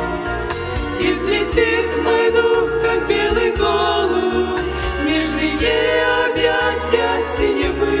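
Women's vocal ensemble singing a Russian-language gospel hymn together into microphones, over an instrumental accompaniment with sustained bass notes.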